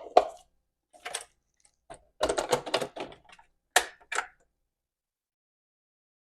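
Irregular clicks and clattering knocks of kitchen things being handled and set down while juice is being made, over about the first four seconds.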